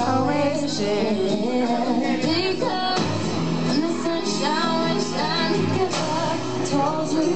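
Recorded pop song with a female lead vocal over a steady backing track, played loud over a PA system.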